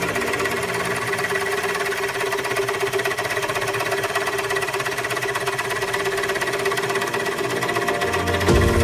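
Bench drill press running a hole cutter into wood: a steady motor whine over a fast, even rattling chatter from the cutting blade.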